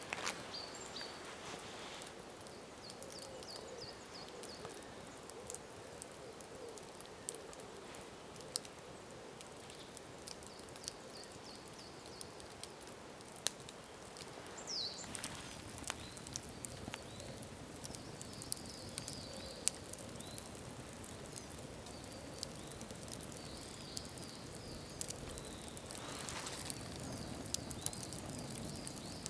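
Wood campfire crackling: sharp, scattered pops over a steady soft hiss. Birds call faintly at times.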